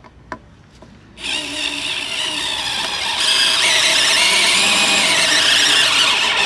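DeWalt cordless driver running a long screw into a wooden board, starting about a second in. It gives a steady motor whine that gets louder about two seconds after it starts, then cuts off sharply.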